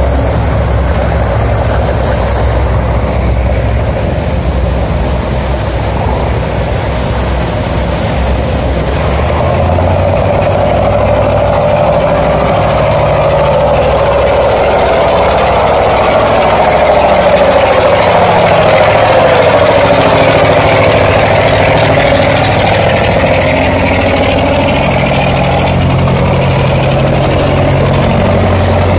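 Inboard engines of wooden river cargo boats running steadily as they pass close by, over the loud rush of turbulent water churning through a sluice gate. The noise swells about halfway through.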